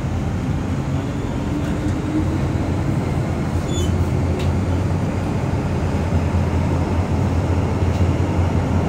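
MTR M-train electric multiple unit heard from inside the carriage while it runs through a tunnel: a steady low rumble that grows a little louder, with a faint motor whine rising over the first few seconds. There are a couple of brief high clicks about four seconds in.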